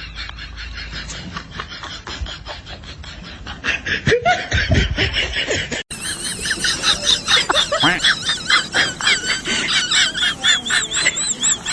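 Rapid, high-pitched laughter in quick repeated bursts, with a cut to a second clip about six seconds in.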